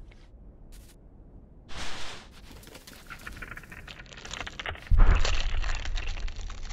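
Snow crunching and crackling as something burrows through it, with a sudden loud, deep rush of snow about five seconds in as a fox's head breaks up through the surface.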